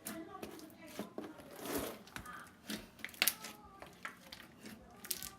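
Thick slime with foam beads being squished and poked by hand, giving irregular crackles and sharp clicks, a few louder snaps a little past the middle.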